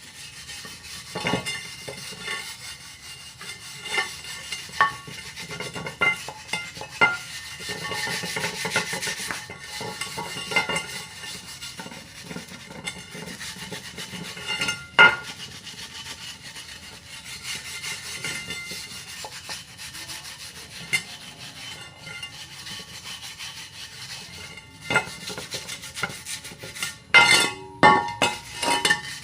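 Hand scraping and scrubbing of paint softened by stripper off a metal motorcycle wheel rim, a continuous rasping rub. Sharp clinks of the tool on the rim break in now and then, loudest about fifteen seconds in and in a cluster near the end.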